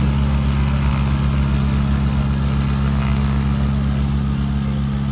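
Diamond DA40 Diamond Star light aircraft's piston engine and propeller running at a steady, even pitch as it rolls along the runway.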